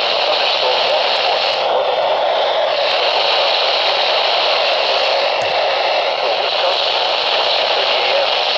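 Steady hiss of radio static from a receiver, with a faint click about five and a half seconds in.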